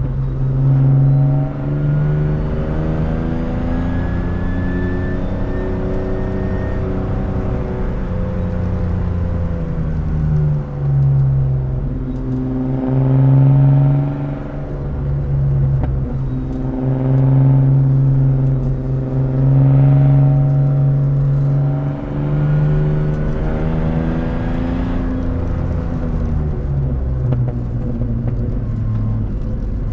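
BMW E36 328i's straight-six engine through a loud aftermarket exhaust, heard from inside the cabin under hard driving. The engine note climbs in pitch and drops back several times as the driver accelerates and changes gear.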